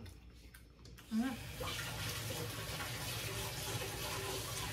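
A steady hiss that starts about a second in and holds evenly.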